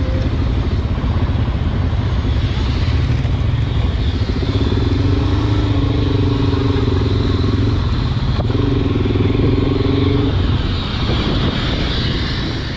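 Onboard sound of a Suzuki DR-Z400SM supermoto being ridden: its single-cylinder four-stroke engine running steadily under way, with a steady engine tone holding through the middle seconds.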